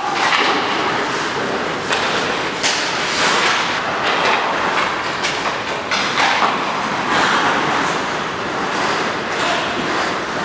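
Ice hockey practice: skate blades scraping and carving across the ice, with scattered sharp knocks of sticks and pucks striking.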